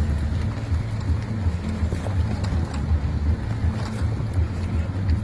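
Wind buffeting the microphone as a steady low rumble, with a jet ski running far out on the water.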